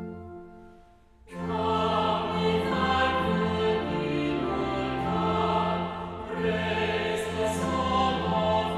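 A church hymn: the organ's introduction dies away, and about a second in a choir comes in singing the hymn over sustained organ chords.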